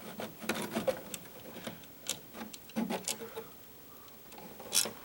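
Electrical wires being handled and worked out of a two-gang wall junction box: irregular clicks, ticks and scrapes, with the sharpest click near the end.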